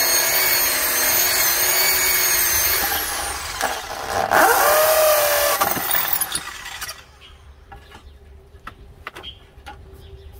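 Corded electric drill boring a hole through a terracotta roof tile: the motor whines steadily, drops in pitch about three seconds in, then runs again with wavering pitch until it stops about seven seconds in. A few light knocks follow as the drilled tile is handled.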